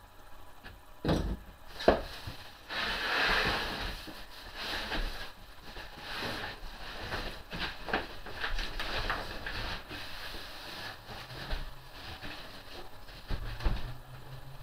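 Shipping boxes being opened and their contents handled: two sharp knocks, a scraping or tearing stretch, then repeated small knocks, clicks and rustling.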